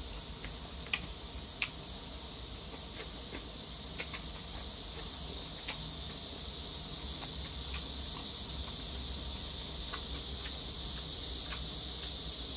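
Quiet mouth sounds of a man chewing jjajangmyeon noodles, a few sharp wet clicks and smacks scattered through, the clearest about one and one-and-a-half seconds in, over a steady high hiss.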